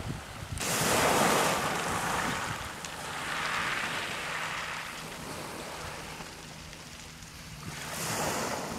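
Small waves washing up over a shingle beach of rounded pebbles, each surge a rush of foaming water across the stones. The loudest surge comes about a second in, a softer one follows around the middle, and another swells near the end.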